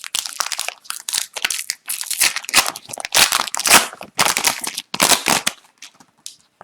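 Foil wrapper of a hockey card pack being torn open and crinkled in the hands: a dense, irregular run of crackly rustling that thins out near the end.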